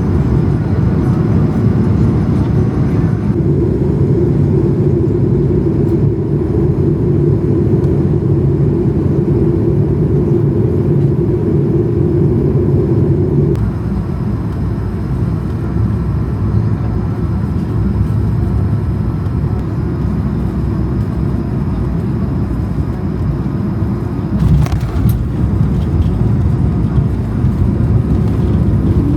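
Steady engine and airflow noise inside a jet airliner's cabin, with a droning tone for about ten seconds that then stops, and one brief click near the end.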